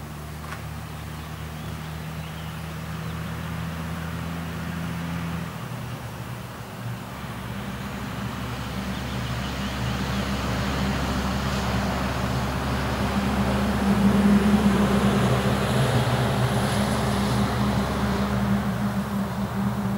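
Electric push-pull commuter train of double-deck coaches approaching, its Siemens Taurus EU47 locomotive pushing at the rear: the rumble of wheels on rail grows steadily louder, with a low steady hum under it.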